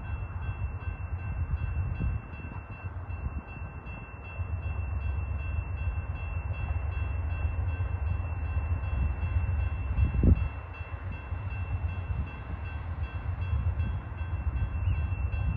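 Railway level-crossing bell ringing steadily with an evenly repeating high ding while the crossing signals flash for an approaching VIA P42 diesel passenger train. Under it runs a strong, uneven low rumble, with one sharp thump about ten seconds in.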